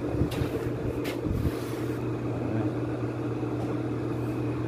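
Steady machine hum running evenly, with a couple of light knocks in the first second or so.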